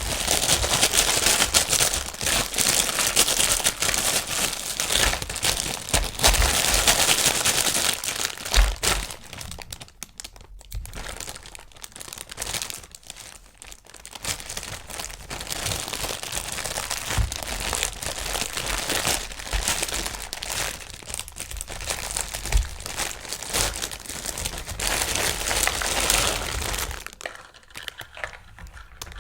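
Toy packaging being crumpled and pulled open by hand: continuous, uneven crinkling, with a few short dull knocks as the package is handled.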